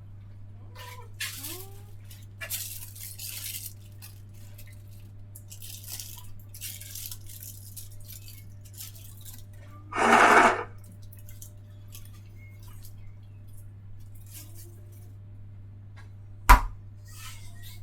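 Kitchen work sounds: dishes and cutlery clinking and clattering over a steady low hum, with a short loud hiss about ten seconds in and a single sharp knock near the end.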